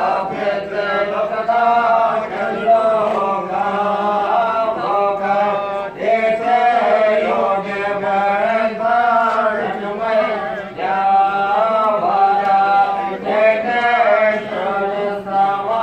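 Hindu ritual mantras chanted aloud in a continuous melodic recitation, phrase after phrase with brief pauses for breath.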